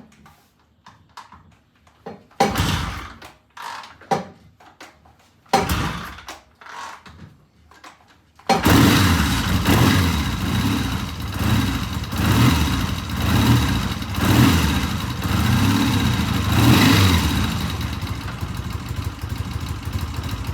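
Vintage British twin-carburettor motorcycle engine being started: it turns over twice briefly without catching, then fires about eight seconds in and runs with uneven revving before settling to a steadier idle near the end. This is a start test after cleaning clogged pilot jets, which control starting and idle.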